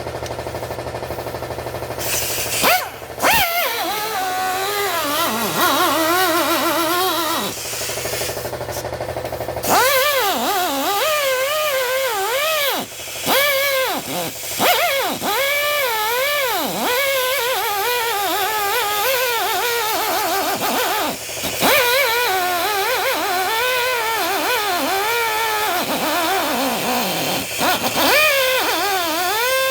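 Electric angle grinder cutting steel, its whine repeatedly dropping in pitch as the disc is pressed into the metal and rising again as it is eased off, over a steady hiss. It starts about two seconds in and stops briefly about a third of the way through before cutting again.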